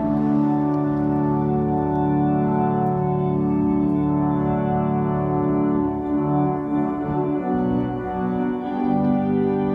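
Organ playing held chords, with the lower notes beginning to move about six seconds in.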